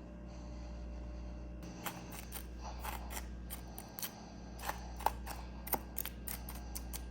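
Humidifier frost being handled and broken, making a run of irregular crisp clicks and crunches that start about a second and a half in, over a steady low hum.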